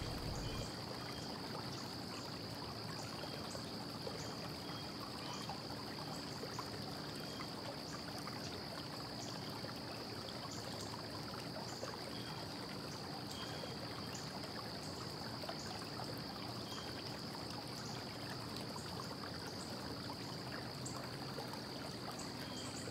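Low, steady hiss of room tone with a faint continuous high-pitched whine and a fainter low hum; no distinct sounds stand out.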